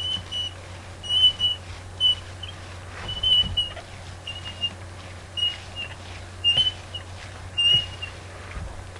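Paint roller on an extension pole squeaking in short, high chirps of steady pitch, about a dozen in uneven groups, as it is worked over the wall. A low steady hum runs underneath.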